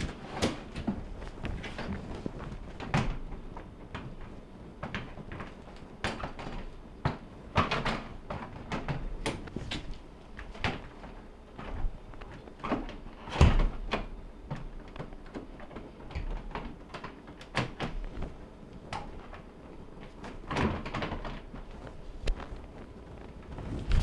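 Irregular knocks and clunks of a Maytag bottom-mount refrigerator's freezer drawer door being set onto and shifted on its slide brackets, with the loudest thud about thirteen seconds in.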